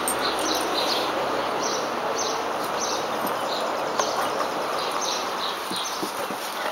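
Outdoor ambience: a steady rushing background noise with small birds chirping over and over, and a few soft knocks as the dogs tussle on the wooden deck.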